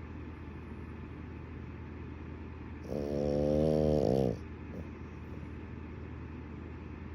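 French bulldog snoring in its sleep: one loud, long snore about three seconds in, lasting about a second and a half, with quieter breathing between snores.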